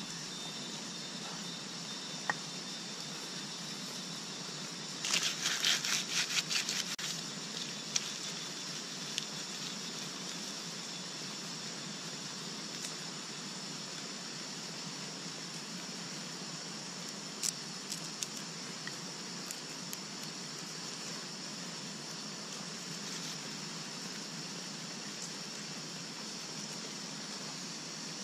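Steady hiss, with a burst of dry, crackly rustling about five seconds in that lasts around two seconds, and a few single sharp clicks later, as dry leaves and plant-fibre tinder are handled by hand.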